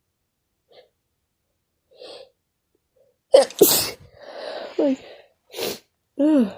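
Sneezing: a few faint sniffs, then a loud, sudden sneeze about halfway through, followed by another sharp sneeze-like burst and short falling pitched cries near the end.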